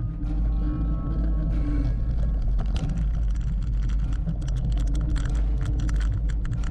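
Look 986 mountain bike riding fast over a rough dirt trail. Wind rumbles steadily on the camera microphone. From about two and a half seconds in, quick clattering rattles come from the bike over the bumps.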